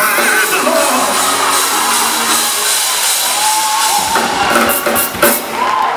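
Live gospel band music with a drum kit, the drums and cymbals striking more strongly in the second half.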